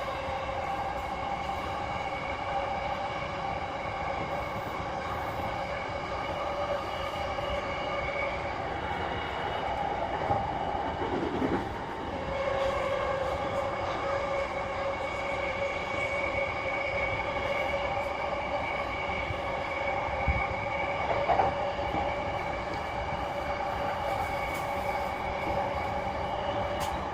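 Inside a JR East E233-3000 series electric train running at a steady speed between stations: continuous rumble of the wheels on the rails, with a steady whine that holds its pitch. There is a brief dip in the sound about halfway through.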